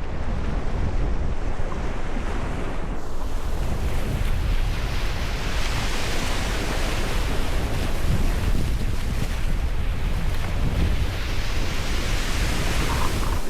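Ocean surf: waves washing in over a steady low rumble, the hiss swelling twice, first about halfway through and again near the end.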